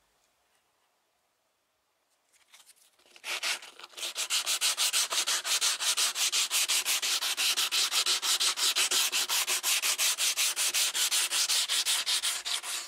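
Hand sanding of dried fiberglass filler on a car roof's T-top channel lip, shaping the filler. Rapid back-and-forth scraping strokes, several a second, begin about three seconds in and stop just before the end.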